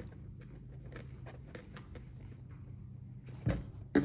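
Faint scattered ticks and rustles of a canvas tool bag being handled, over a steady low hum. Near the end come two louder knocks as a hand tool is set down on the wooden workbench.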